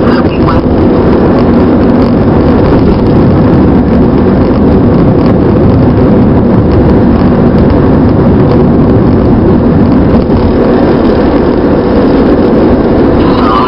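Steady road and engine noise heard inside a car moving at freeway speed, a constant low rumble without breaks.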